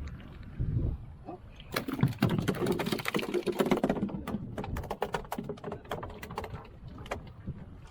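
A rapid clatter of sharp knocks, dense for about two seconds, then thinning to scattered single knocks.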